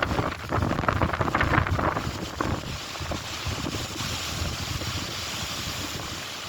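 Wind buffeting the microphone in strong gusts for the first couple of seconds, then settling into a steadier, quieter rush.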